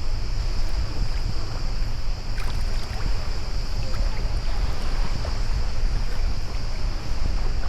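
Wind buffeting the microphone with a steady low rumble while water laps and splashes around a stand-up paddleboard as it is paddled. A steady high-pitched hiss runs underneath, with a few faint splashes about two and a half to three seconds in.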